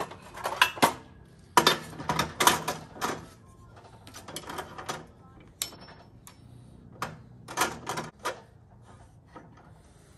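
Irregular clacks, clicks and knocks of metal tools and machine fittings being handled at a workbench, in clusters that are busiest in the first three seconds and thin out towards the end.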